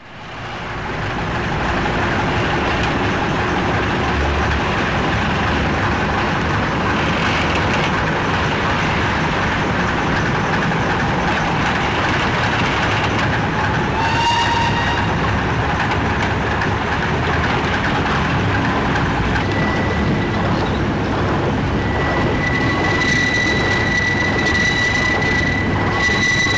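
A train running on rails: a steady, loud rumbling clatter that swells up over the first couple of seconds. It carries a short rising squeal about halfway through and a long high squealing tone near the end.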